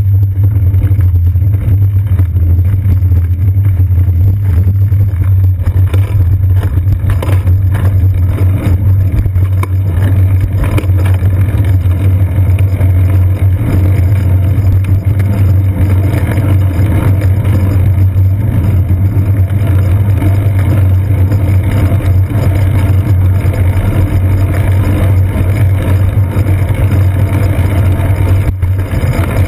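Steady, loud low rumble of road vibration and wind noise picked up by a GoPro Hero 2 mounted on a bicycle's seat post while riding on wet city pavement.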